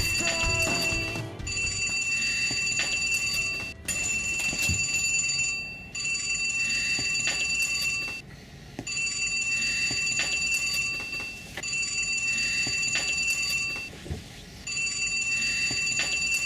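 Desk telephone ringing: a high electronic ring tone repeating in bursts of about two seconds, with short breaks between rings.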